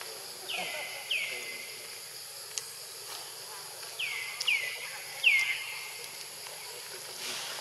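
A young monkey crying: five short squeals, each dropping sharply in pitch and then held briefly, two near the start and three more in quick succession about halfway through. A steady high insect drone runs underneath.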